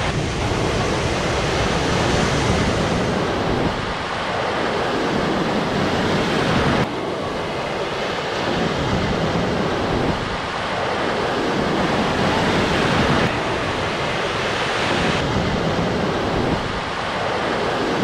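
Ocean surf breaking and washing up the beach, with wind rushing over the microphone; the noise swells and eases every few seconds.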